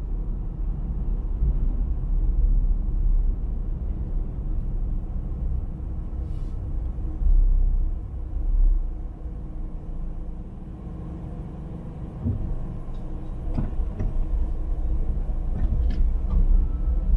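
Steady low rumble of a car being driven: engine and tyre noise on the road. A few faint clicks come in the last few seconds.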